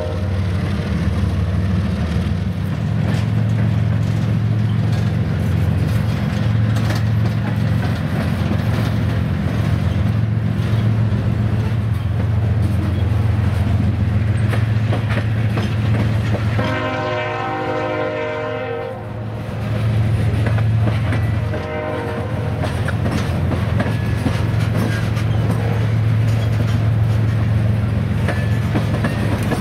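CSX freight train's hopper cars rolling past, a steady rumble of steel wheels on rail with clickety-clack. About seventeen seconds in a pitched, horn-like tone sounds for about two seconds, with a shorter one a few seconds later.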